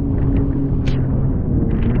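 Jet ski running at speed with a steady engine drone, the hull slapping through choppy waves. Bursts of spray splash about a second in and again near the end.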